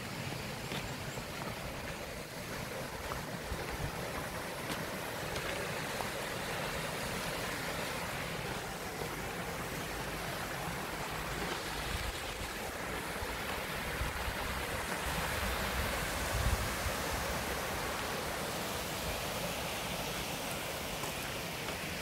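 Mountain stream rushing steadily over rocks and a small cascade, with an uneven low rumble of wind on the microphone.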